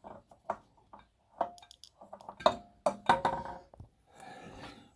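Irregular metallic clinks and knocks, a few with a short ring, as a stuck spin-on oil filter on a Caterpillar 3208 diesel engine is wrestled with.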